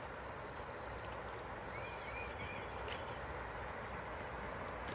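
Faint riverside ambience: a steady rushing hiss with a continuous high-pitched trill over it, and three short soft chirps in quick succession about two seconds in.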